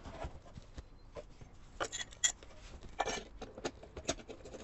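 A white plastic sink drain fitting being screwed by hand onto the drain outlet of a composite sink: a scatter of short plastic clicks and brief scrapes, most of them in the second half.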